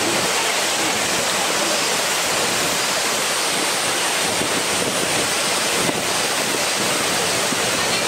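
Kani-daru waterfall pouring steadily into its plunge pool: a constant, loud rushing of water.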